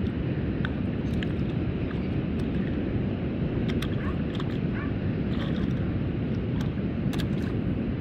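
Small splashes and patters of a stick striking and stirring shallow water, most of them around halfway through and again near the end, over a steady low outdoor rumble.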